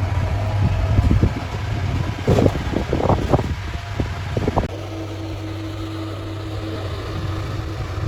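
Industrial machinery running with a steady low drone. In the first half it is broken by a rapid series of knocks and clatter, like metal parts being handled or struck. After about five seconds the drone runs on alone with a steady hum.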